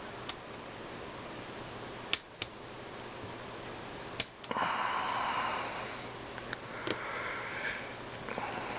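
A few sharp clicks of small steel ratchet parts and a tool as a detent pin is pushed into the SK ratchet's head, then a few seconds of hissy scraping noise. The pin is not seating from the top.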